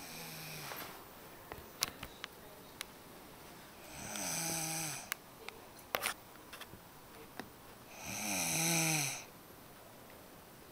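A sleeping person snoring: two long snores about four seconds apart, each lasting about a second, with a fainter, shorter one at the start. A few sharp clicks come in between.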